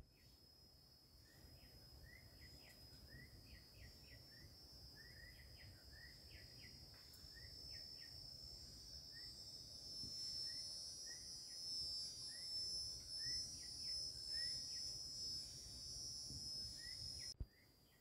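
A steady, high-pitched insect drone that grows louder about halfway through, with a bird's short rising chirps repeated over it. The drone drops away abruptly near the end.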